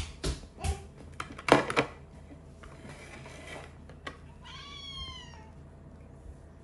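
Norwegian Forest Cat meowing once, one long call about four and a half seconds in. Before it, a run of knocks and clatters, the loudest about a second and a half in, as a plate is handled and set down on a wooden table.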